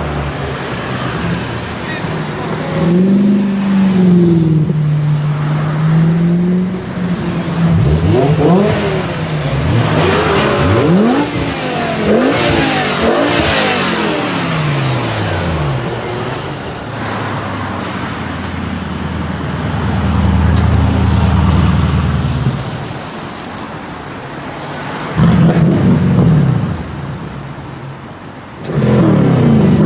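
High-performance car engines revving and accelerating on a street, with the pitch repeatedly climbing and dropping through the middle and a loud burst of revs near the end.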